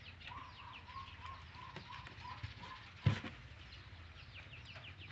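Birds chirping in the background with many short, falling chirps. For the first two and a half seconds one bird repeats a short call about three times a second. A single sharp knock comes about three seconds in.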